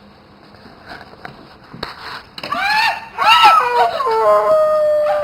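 A high-pitched wailing cry: several short cries rising and falling in pitch from about halfway in, then one long held note.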